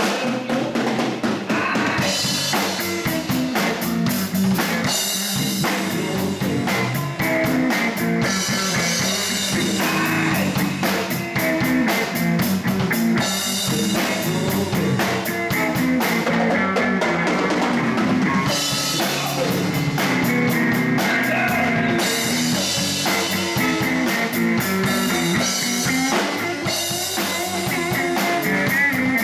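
Blues band playing live: electric guitar, electric bass and a Ludwig drum kit keeping a steady beat, with cymbals washing in and out.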